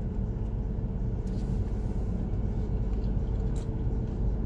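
Car cabin noise while driving: a steady low rumble of engine and road, with a faint steady hum above it.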